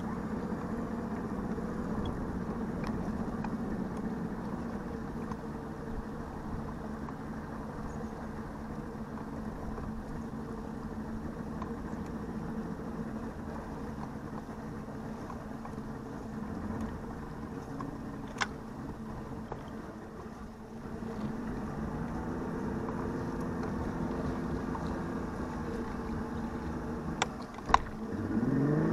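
Boat's outboard engine idling steadily at low speed. Near the end there are two sharp clicks, and the engine note sweeps up and then back down.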